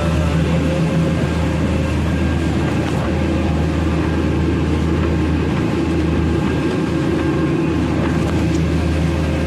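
Small fishing boat's engine running steadily underway: a constant low drone with a rushing haze of water and wind over it.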